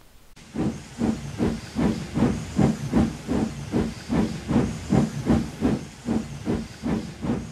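Steam locomotive chuffing steadily, its exhaust beats coming evenly at about three a second as it pulls away.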